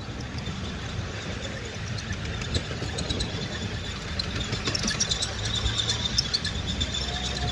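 Ride-on miniature railway train running along its track: a steady low rumble with scattered clicks.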